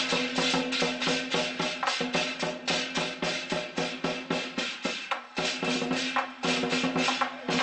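Procession percussion music: drums and cymbals beat a fast, even rhythm of about five strokes a second over a steady held tone. The beating thins out briefly a little after five seconds in, then picks up again.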